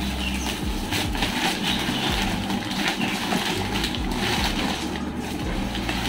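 Plastic packaging rustling and crinkling in short irregular bursts as wrapped packs of microfiber towels are handled and pulled out of a cardboard box.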